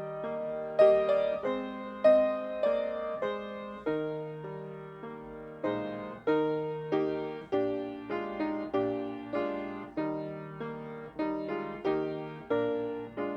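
Piano playing a hymn tune in full chords, each chord struck and left to fade.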